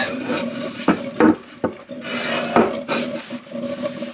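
Cloth dish towel rubbing and wiping over a wet bamboo cutting board, with a few short knocks as the board is handled.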